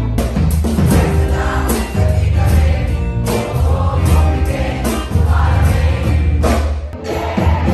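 Music with many voices singing together over a strong bass line.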